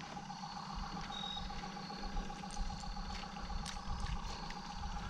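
A small electric motor on the fishing boat running with a steady hum, with a few faint ticks over it.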